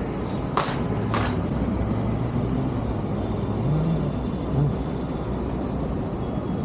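Road traffic running steadily, a low rumble of car and bus engines, with two short hissing bursts about half a second apart near the start.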